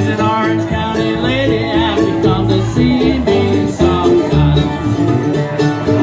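Acoustic blues band playing live: plucked acoustic guitars and upright bass keep a steady rhythm under a wavering, bending lead line.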